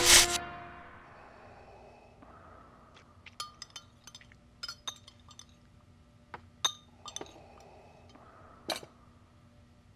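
Scattered light clinks of glasses and cutlery on dinner plates, a handful of separate ticks over a faint steady hum. A loud music hit cuts off right at the start.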